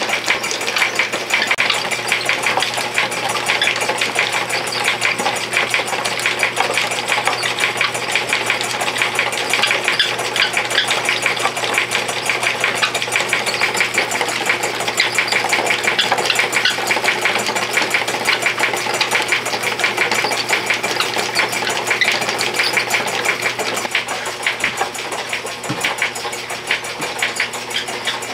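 Homemade plywood pad dye machine running, its gears, belt pulley and rollers turning with a steady, dense rattle of rapid clicks.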